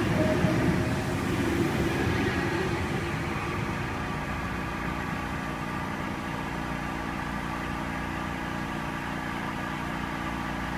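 An Oscar (H-set) electric intercity train pulling away from the platform, its rumble fading over the first few seconds and leaving a steady hum with a few faint steady tones.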